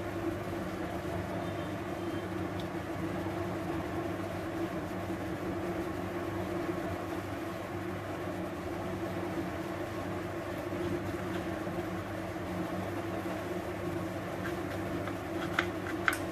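A steady low mechanical hum, like a running motor, with a few light clicks near the end.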